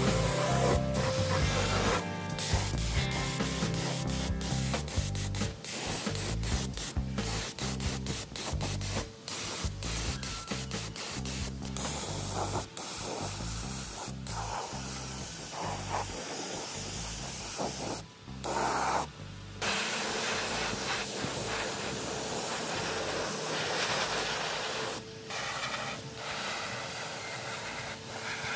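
Compressed-air gravity-feed spray gun spraying paint: a hiss of air and atomised paint that breaks off and starts again many times.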